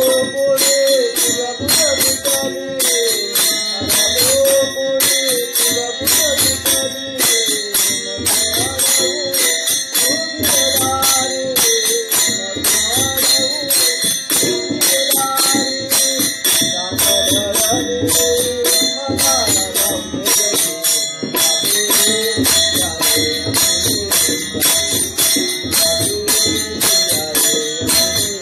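Marathi gavlan devotional folk music: a wavering melody over a fast, steady beat of jingling percussion, about three strokes a second.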